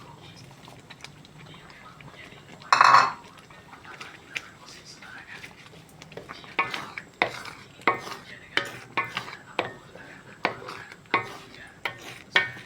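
Metal utensils clinking against dishes and pots: one louder clatter about three seconds in, then from halfway on a run of sharp clinks, one to two a second, each with a short ring.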